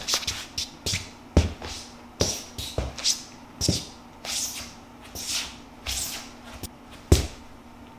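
Footsteps in soft plush Nitori N-Warm house slippers on a hard floor: repeated soft swishing scuffs, some with a dull thud, about one or two a second, with a louder thud near the end. A faint steady hum runs underneath.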